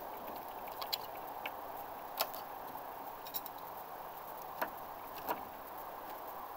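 Steel throwing knives being pulled out of a wooden plank target and gathered in the hand, clinking: about six short sharp metallic clicks spread out over a steady background hiss.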